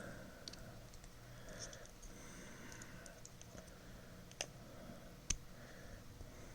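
Small plastic K'Nex figure pieces handled and fitted together, giving faint scattered clicks and light rustling, with two sharper clicks a little under a second apart about four seconds in.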